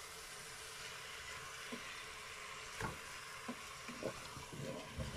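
Chicken pieces frying in the bowl of a Cookeo electric multicooker, a steady soft sizzle as the meat browns. A few light knocks of the stirring utensil against the bowl come about three and four seconds in.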